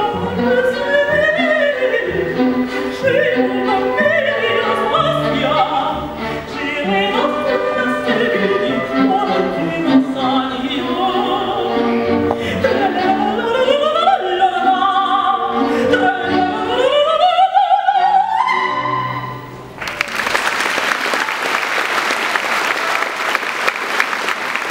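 Operatic soprano singing with a symphony orchestra, her line climbing to a final high note. The music stops at about twenty seconds in, and audience applause follows.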